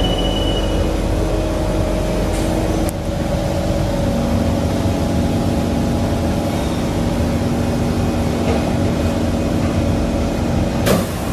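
Running noise inside an MRT train car: a steady rumble of wheels and traction motors with a few steady motor tones. There is a brief dip about three seconds in and a sharp click near the end.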